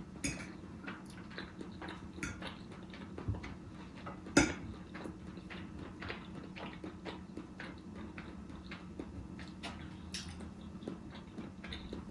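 Close-miked eating of spaghetti: a fork clinking and scraping on the plate among small chewing and mouth sounds, with one sharper, louder click about four seconds in.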